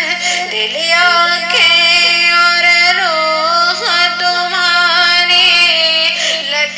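A high solo voice singing an Urdu naat, drawing out long held notes with ornamented melodic turns, over a steady low hum.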